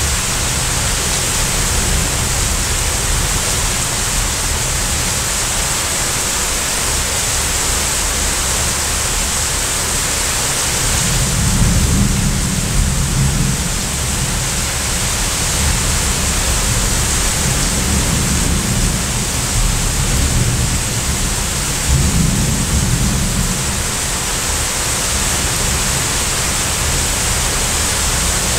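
Heavy rain pouring steadily, with low rolls of thunder rumbling twice: a longer one about eleven seconds in and a shorter one about twenty-two seconds in.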